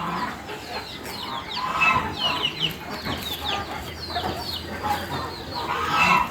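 Chickens clucking in the background, with many short, high chirps that fall in pitch throughout.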